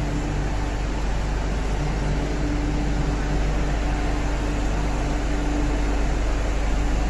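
Steady mechanical hum and air-handling noise of an underground metro station platform, with a constant low drone and a hum that drops out briefly about a second in.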